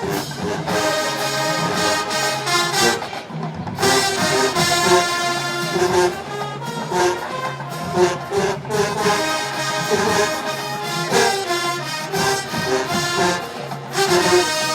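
HBCU show-style marching band playing, brass section over a steady drum beat.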